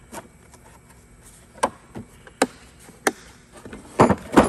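Hand tools and tool cases being handled in a toolbox drawer: scattered, irregular knocks and clicks, with a louder pair of knocks near the end.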